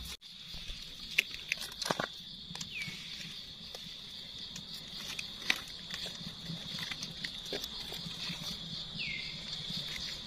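Light rustling of dry leaf litter and sharp clicks and scrapes of a knife cutting and trimming mushroom stems, over a steady high insect drone; three short falling calls also sound.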